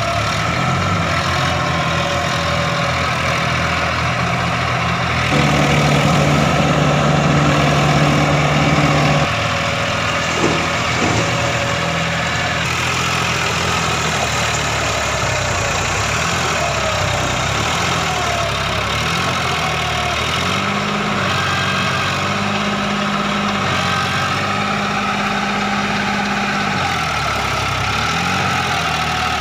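Truck engine sound effect idling steadily, with a louder, higher stretch a few seconds in and several rises and falls in pitch later on.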